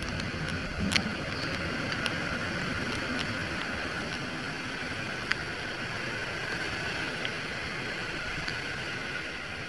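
Steady hiss of heavy rain heard from a motorcycle on a wet road, with a few sharp ticks.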